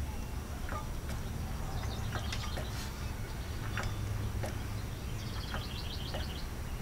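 Low steady hum with a few faint scattered clicks, and a short rapid bird trill about five seconds in.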